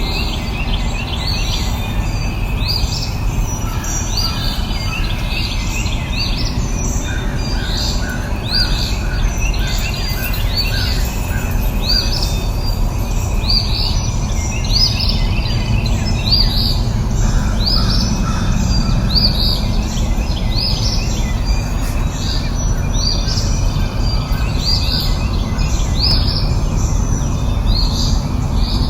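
Birds chirping: short high calls that drop in pitch, repeated about once a second, with a quick run of lower notes near the middle, over a steady low rushing noise.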